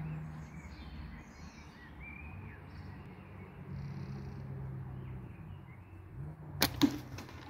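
A slingshot shot: a sharp snap as the flat bands release, then about a quarter second later the louder crack of the 7mm steel ball hitting the 40mm steel spinner target, which rings briefly: a hit. Faint bird chirps in the background.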